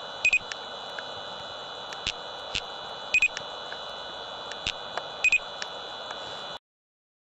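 Three short double beeps, about two and a half seconds apart, from an LTI Ultralyte 100 LR laser speed gun as it fires three shots at an approaching car, over a steady hiss. The sound cuts off suddenly near the end.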